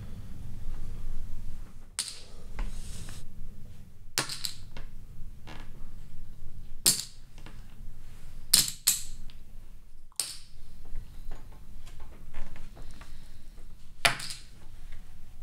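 Poker chips clicking and clattering in short bursts about seven times, over a low steady hum.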